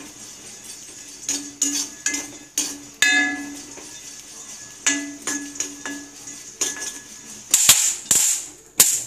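A steel spoon scraping and clinking against a dry metal kadai while stirring dried black nightshade berries that are being roasted without oil, in irregular strokes with a faint ring from the pan. Near the end there is a louder rattling swish.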